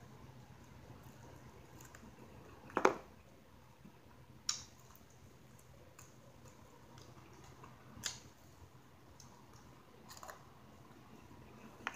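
A person eating fried pork chops and mashed potatoes: faint chewing with five sharp clicks spread across it, the loudest about three seconds in.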